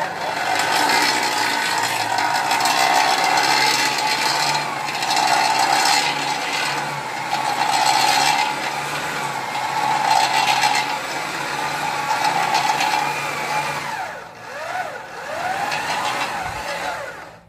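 SDS hammer drill running under load as it turns the pinion and toothed ring gear of a homemade profile roller that is rolling a steel tube. Its motor pitch drops and climbs again a few times near the end, and it stops at the very end.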